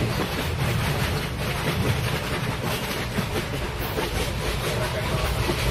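Train running on rails: a steady low rumble with irregular clicks of the wheels.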